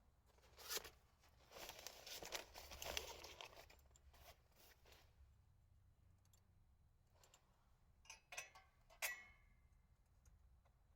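Rustling and crinkling of handling in the first few seconds, then scattered small clicks and a sharp click with a short ring about nine seconds in.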